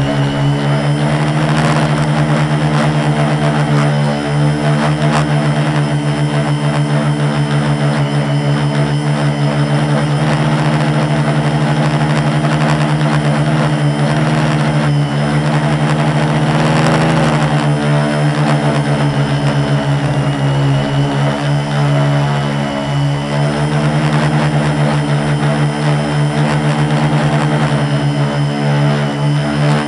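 Four MultiStar 2212 920kv brushless motors spinning 10x4.5 propellers on a 450-size quadcopter, heard up close from its onboard camera: a steady, loud, whining drone with small shifts in pitch now and then.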